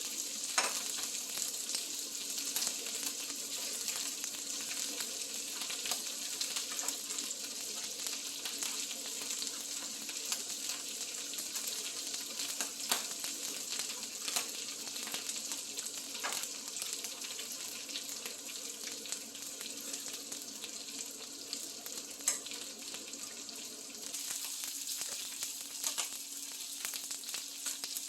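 Duck meat sizzling as it fries in a pan: a steady hiss with scattered short clicks.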